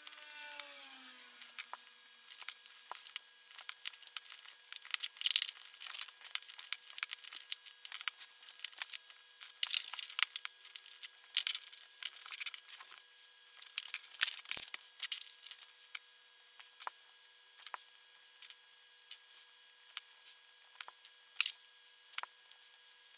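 Tiny plastic micro building bricks (LOZ iBlock diamond-micro blocks) being handled on a wooden tabletop: they are picked from a loose pile, set down and pressed together. The result is scattered sharp clicks and taps at irregular intervals, with one louder click near the end.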